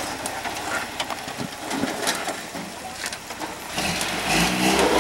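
Rock-crawling off-road pickup's engine, low at first under scattered knocks, then revving up loudly about four seconds in as the truck pulls itself up the rock.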